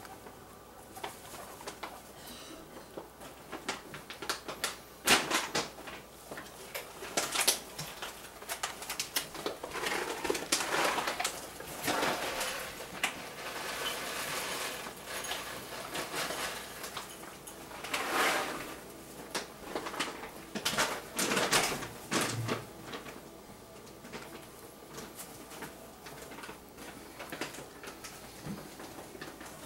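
Sugar glider eating Froot Loops at its cage: crunching, with irregular clicks and rattles from the steel food bowl and wire cage bars, coming in spells of a second or two.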